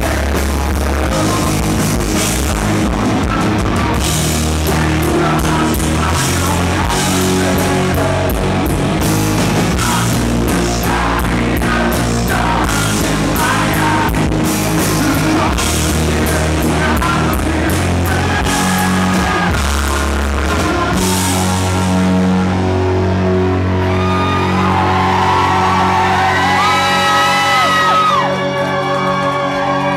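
A live rock band playing, with a male lead singer, electric guitar and drums. About two-thirds of the way through, the drums drop out and held notes ring on over a sustained bass.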